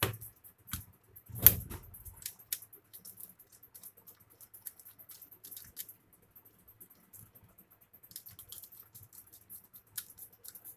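Hands fitting plastic switch modules and wires into a plastic switch board: a few sharp plastic clicks and knocks in the first couple of seconds, the loudest about a second and a half in, then light scattered ticks of handling.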